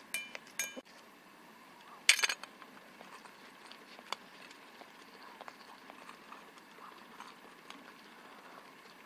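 A small dog eating finely crushed dry kibble from a stainless steel bowl: faint licking and chewing ticks, with two short ringing metallic clinks in the first second and a louder clink about two seconds in.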